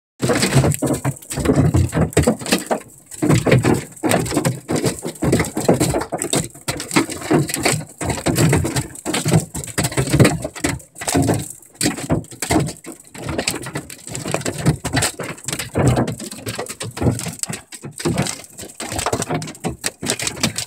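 Hail and rain pounding loudly on the metal of a pickup truck and camper, heard from inside the cab: a dense, irregular drumming that surges and eases with the gusts.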